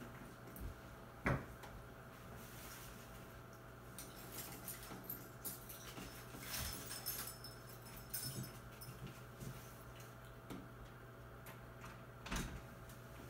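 Small props handled on a tabletop: a sharp knock about a second in, scattered light clicks and rustles through the middle, and another knock near the end, over a steady low hum.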